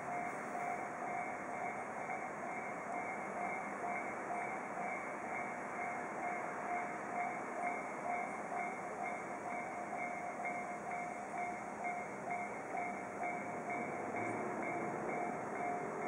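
Japanese railroad crossing alarm ringing, its bell tone repeating in an even, steady rhythm over a constant rushing background noise.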